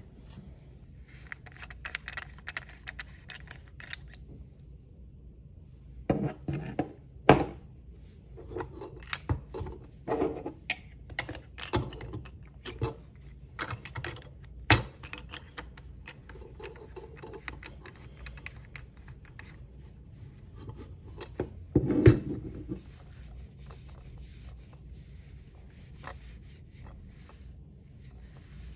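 Gloved hands handling a plastic phone clamp and fitting it onto a gooseneck holder's ball-joint mount: rubbing and scraping with a string of irregular clicks and knocks, three of them sharper than the rest.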